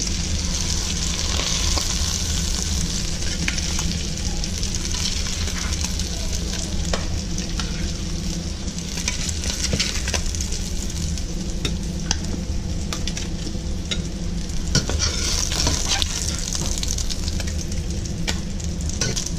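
Fish fillets sizzling in butter in a hot skillet, with a metal spatula scraping and clicking against the pan now and then as the fillets are lifted out.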